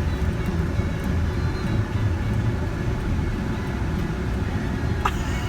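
Steady low rumble of a moving vehicle, with one brief higher squeak near the end.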